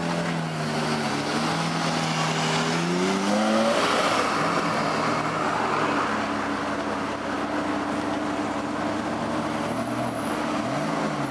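Lamborghini Murciélago LP640 Roadster's V12 revving as it pulls away, its note rising for about three and a half seconds. Then a steady engine note, with a quick throttle blip near the end as a black Ferrari 360 sets off.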